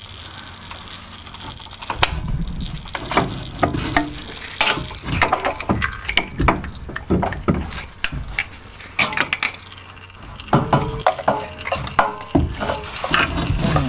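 Metal tool clinking and knocking against a driveshaft's inner joint as it is levered out of the gearbox: irregular sharp taps with a low rumble underneath, starting about two seconds in.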